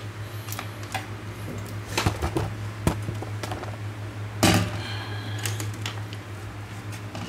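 Scattered clicks and knocks of objects being handled on a tabletop, the loudest about four and a half seconds in, over a steady low hum.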